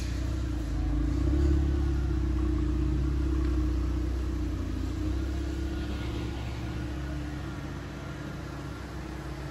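Volkswagen Polo GTI's 2.0-litre turbocharged four-cylinder running at low revs through a newly fitted Milltek exhaust. The steady hum swells slightly about a second in, then fades gradually as the car pulls slowly away.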